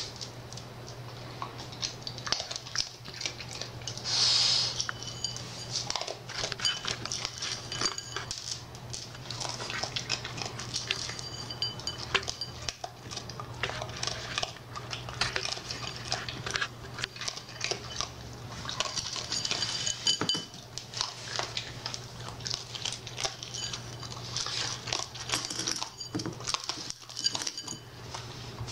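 A raccoon eating dry pet kibble out of a ceramic bowl on a hard floor: crunching and many small clicks and clinks of food and paws against the bowl, with a few louder rattling spells. A steady low hum runs underneath.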